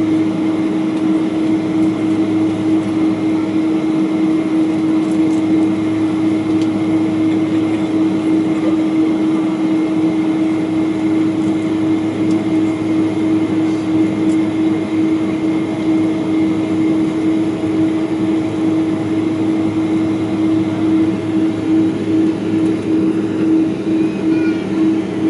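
Boeing 777-200ER's Pratt & Whitney PW4074D engines at idle thrust during taxi, heard inside the cabin: a steady drone with a strong low hum tone and a few fainter higher tones.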